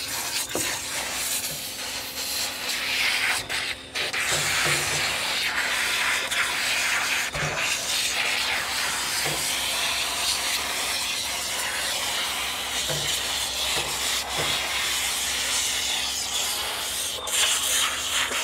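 Water-and-shampoo spray from a Prima Bathing System nozzle running steadily onto a soapy dog's coat in a stainless-steel tub, with hands rubbing the lather in. The spray drops away briefly about four seconds in.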